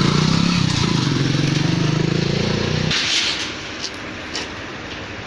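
Single-cylinder engine of a Bajaj Pulsar NS200 motorcycle running, its pitch rising slightly, then cutting off abruptly about three seconds in. After that there is only quieter outdoor background noise with a few light clicks.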